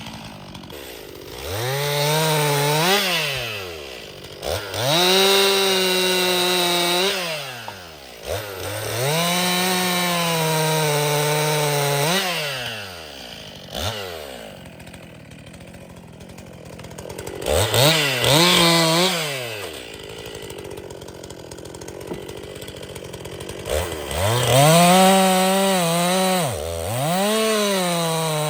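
Stihl MS261 C-M two-stroke chainsaw bucking firewood. The engine revs up to full throttle and holds there through each cut, then drops back to idle. This happens about five times, with a longer idle stretch in the middle.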